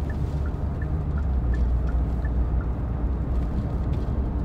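Steady low rumble, as of a vehicle in motion, with faint regular ticking about three times a second in two alternating pitches that stops about two and a half seconds in.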